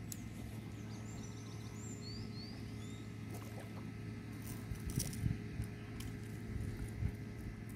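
Hooked traíra (wolf fish) splashing at the water's surface as it is brought in against the bank and gripped, with the loudest splashes about five seconds in. A few faint bird chirps early on.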